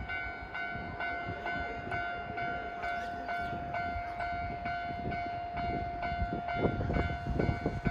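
Japanese level-crossing warning bell ringing in a steady rhythm of about two strokes a second. Under it, a passing train rumbles and clatters on the rails, growing louder near the end.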